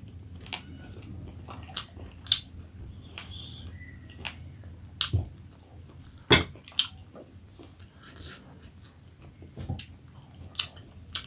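Close-up eating sounds of a person eating jhol momo, dumplings in soup: chewing and wet mouth sounds, broken by scattered sharp clicks and smacks.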